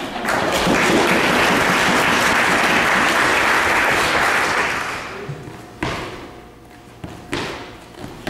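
Audience applauding for about five seconds, then dying away, followed by a few separate sharp knocks.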